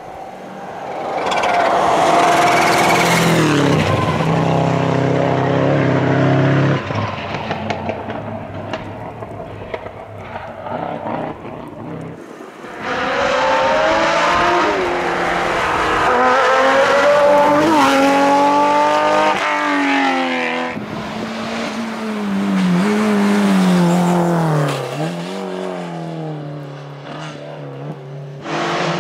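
Historic rally cars passing at full speed, engines revving hard, the pitch climbing and dropping with each gear change. One car's sound fades away, and a new passage cuts in suddenly about 13 seconds in.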